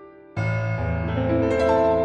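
Sound Magic Cinema Blue virtual Steinway grand piano, a hybrid sampled-and-modelled instrument, being played. The dying tail of earlier notes gives way, about a third of a second in, to a loud low chord, and higher notes then come in one after another, climbing over the held bass.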